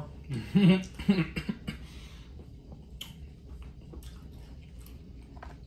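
A couple of short throat sounds in the first second or so, then faint scattered clicks and rustles as a king crab leg is handled over the plastic boil bag.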